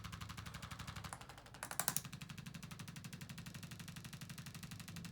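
Handheld percussive chiropractic instrument (the "machine gun") rapidly tapping over the C6 and T2 spinal segments, an even fast rattle of pulses, with a few louder knocks just before two seconds in.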